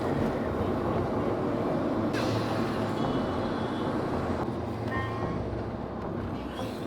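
Steady rumble of a vehicle running, with faint brief tones about three and five seconds in.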